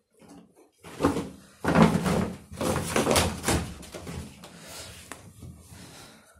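Clothes being handled and moved out of a wooden wardrobe: rustling with a few knocks and thuds against the wardrobe, loudest between about one and four seconds in, then quieter handling.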